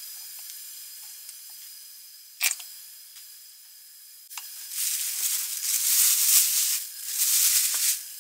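A plastic bag crinkling and rustling loudly in uneven bursts from about halfway through. A single sharp click comes a little before it, over a faint steady hiss.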